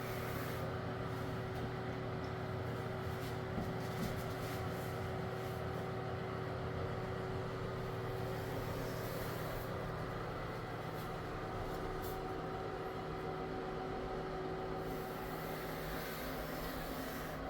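A small motor running with a steady hum and a constant low tone, with a few faint ticks over it.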